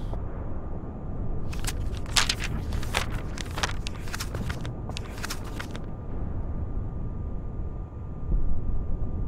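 Sheet of letter paper crackling in a run of sharp rustles as it is handled, over a steady low rumble. The crackles start about a second and a half in and stop around six seconds.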